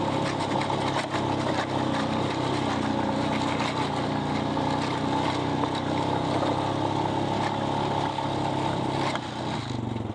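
Vehicle engine running steadily under throttle, with wind noise over it; the engine eases off about nine seconds in.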